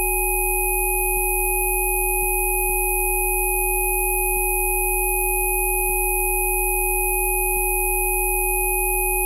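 Rife-style frequency-therapy track: several electronic sine tones sounding together, from a low hum up to a thin high whistle, held completely steady.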